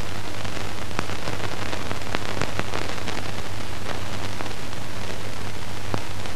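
Steady hiss with scattered crackling clicks and a faint low hum: the surface noise of an old film soundtrack.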